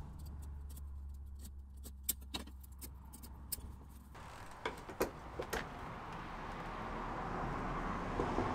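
Scattered light taps and clicks over a low steady hum. About four seconds in the hum stops, and a steady hiss grows slowly louder, with a few more sharp clicks in it.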